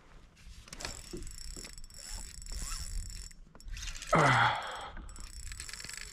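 Spinning fishing reel being worked as a bait is sent down: ticks and whirring from the reel's gears and bail. A short, louder sound about four seconds in falls in pitch.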